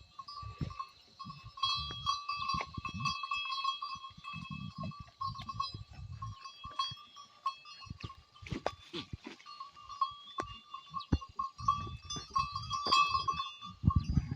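Goats bleating, with sharp knocks and low thumps, over a steady high-pitched drone.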